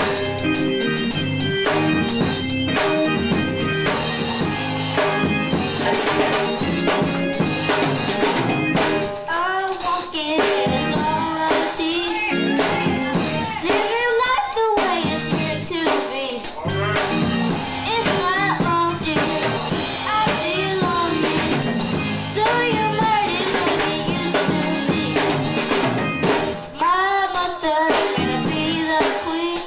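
Live gospel music: a girl sings lead into a microphone over a drum kit and band accompaniment.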